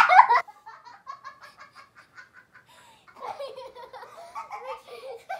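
Children laughing: a loud burst of laughter at the start, then a run of short, quiet giggles, then louder laughter again from about three seconds in.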